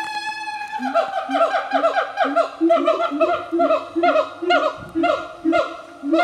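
A siamang family singing in chorus: a long held note, then a rapid run of repeated falling calls, about two or three a second, with lower notes in between.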